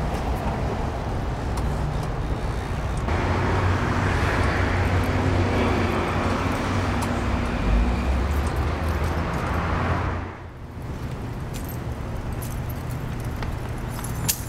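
Street traffic noise: car engines running, with a steady low hum. About ten seconds in it dips briefly, then carries on somewhat quieter, with a few light clicks near the end.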